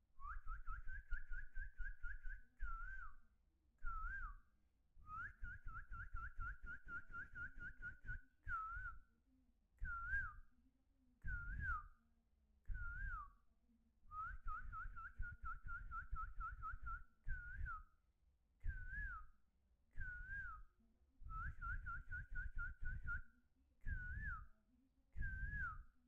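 Loud, repeated warbling whistles at one steady pitch: a dozen or more phrases with short gaps between them, some long trills and some short notes that dip at the end, each with a low rumble underneath.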